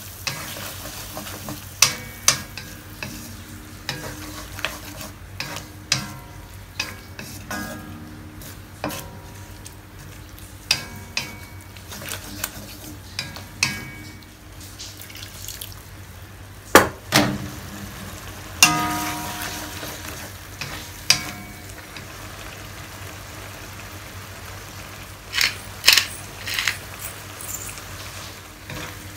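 Chicken and luffa sizzling in a black wok while a wooden spatula stirs and scrapes through them, with irregular sharp knocks of the spatula against the wok.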